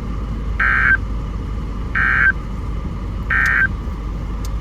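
NOAA Weather Radio's EAS end-of-message code: three short bursts of warbling SAME digital data tones, about a second and a half apart, closing the thunderstorm watch message. A steady low hum and hiss from the radio runs underneath.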